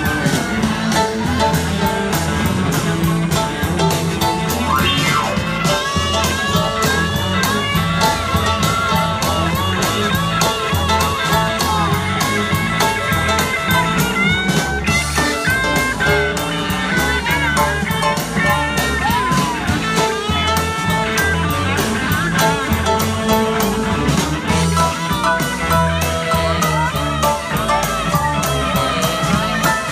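Live band playing a blues-rock instrumental: a steady bass line and drum beat under keyboard, with a lead line of bending notes through the middle.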